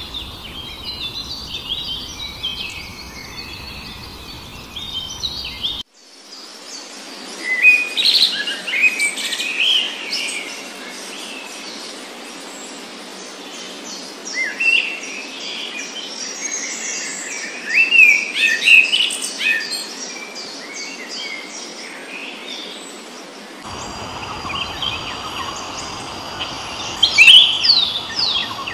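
Several wild birds chirping and singing in a busy chorus of short calls and trills. The background cuts abruptly twice, about six seconds in and again near the end, as the recording changes.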